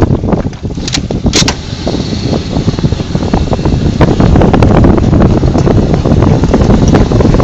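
Wind buffeting the microphone: a loud, uneven low rumble with crackle throughout.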